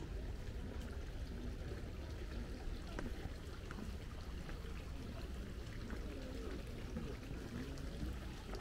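Steady trickle of running water from garden fountains or water channels, with faint murmuring voices in the background.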